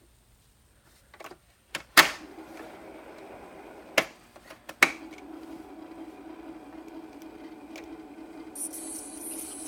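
A 1978 Fisher-Price record player being handled: a few sharp clicks and knocks, the loudest about two seconds in. After that its motor runs with a steady hum, and a high hiss comes in near the end.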